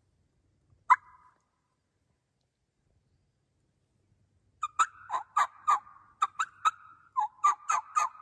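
Wild turkey yelping: a single short note about a second in, then, after a pause, a quick run of raspy yelps at about three or four a second that carries on past the end.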